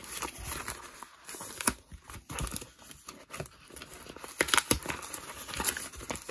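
Yellow plastic bubble mailer being torn open and crinkled by hand: irregular tearing and rustling, loudest about two-thirds of the way through.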